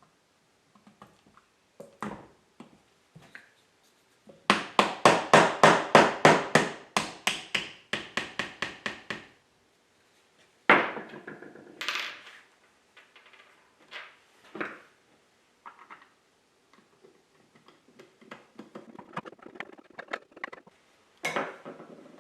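Hammering on wood: a quick run of about twenty strikes, about four a second, fading over the last few, then a few single knocks and handling clatter of tools and wooden parts.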